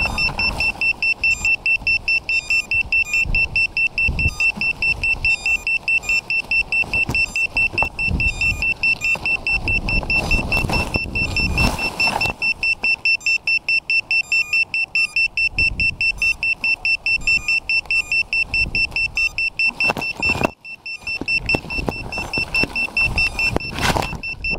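Leaves and twigs rustling and scraping against a pole-mounted camera as it is pushed through tree foliage, over a steady high-pitched whine that pulses several times a second.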